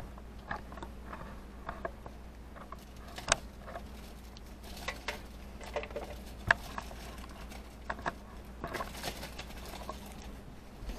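Irregular light clicks and taps of kitchen handling during food preparation, with a brief scraping rustle about nine seconds in, over a low steady hum.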